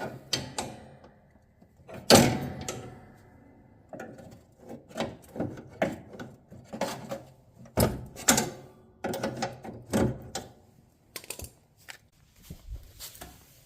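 Sheet-metal belly pan of a Cub Cadet XT1 ride-on mower clunking and rattling as it is worked loose after unbolting. There is one loud metallic clang about two seconds in that rings on briefly, then a run of irregular knocks and scrapes.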